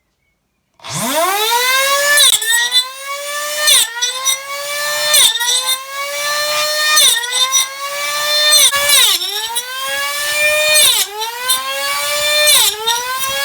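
Homemade table saw's electric motor spinning up to a high whine, then dropping in pitch and recovering over and over, about every one and a half seconds, as the blade is loaded by cuts.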